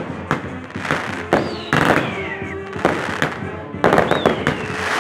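Castillo fireworks going off: sharp bangs and crackles about every half second, with a whistling firework falling in pitch about a second and a half in and another near the end.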